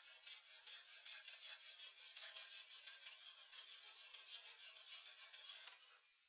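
Fast, continuous scratchy rubbing strokes on a surface, fading near the end.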